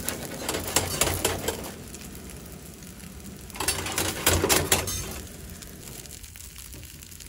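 Metal spatula scraping and clinking against a wrought-iron frying pan while a chijimi pancake fries, over a soft sizzle. The scraping comes in two rattling spells, one at the start lasting a second and a half and another about four seconds in.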